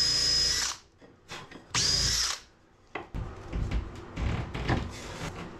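Cordless drill counterboring a wooden trim piece: two short runs with a high motor whine, the first about a second long and the second, half a second, spinning up about two seconds in. Light wooden knocks and scrapes follow as the piece is worked by hand.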